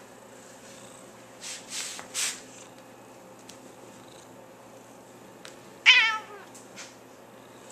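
Domestic cat vocalizing when nudged: three short breathy, hissy sounds a couple of seconds in, then one loud, short meow falling in pitch about six seconds in.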